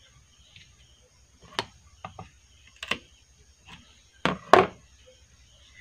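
Irregular sharp clicks and knocks from hands working the 'platino' contact strip and its wing-nut adjusting screw on the wooden frame of a homemade fish-stunner coil, with a louder double knock about four and a half seconds in.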